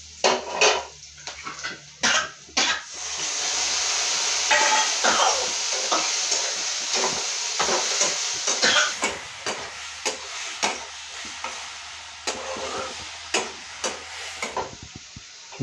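Food sizzling in a steel kadhai on a gas stove, the hiss swelling loudly about three seconds in and slowly dying away over the next ten seconds, while a steel spatula scrapes and clinks against the pan throughout.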